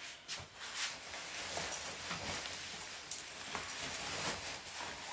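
Clothing fabric rustling and swishing as a tight jacket is tugged and swung up over the shoulders in a struggle to get an arm into its sleeve.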